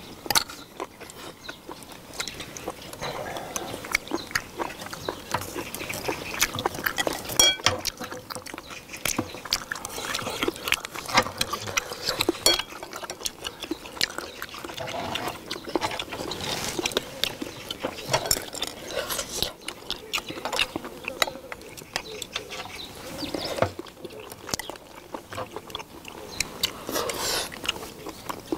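Eating sounds of people chewing seafood such as sea snails, octopus and clams, with many irregular small clicks of shells and chopsticks.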